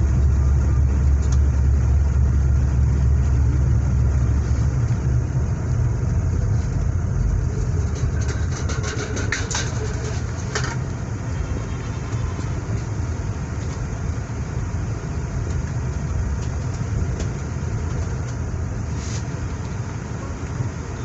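Vehicle engine and road rumble: a steady low drone, heavier for the first four or five seconds, with a cluster of short ticks about eight to eleven seconds in.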